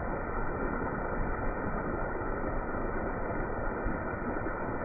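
Pieces of turtle meat shallow-frying in a skillet of oil over an open gas burner flame: a steady, even sizzle and burner rush.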